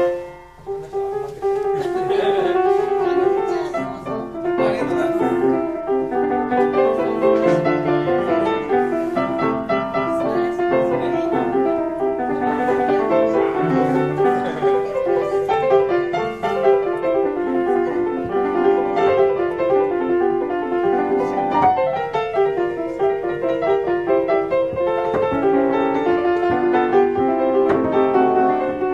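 A repaired 150-year-old Ritmüller upright piano, built in Germany in 1872, being played in a continuous flowing passage of many notes. There is a short drop in loudness just after the start before the playing carries on.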